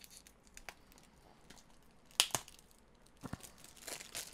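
Plastic shrink-wrap being picked at and torn off a disc case: scattered small crackles, two sharp cracks about two seconds in, then crinkling near the end.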